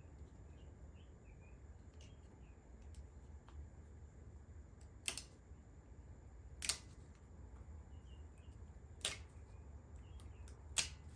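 Four short, sharp metal clicks, spaced one to two seconds apart, from a driveshaft universal joint being worked into place, over a faint low hum. The new joint is very stiff.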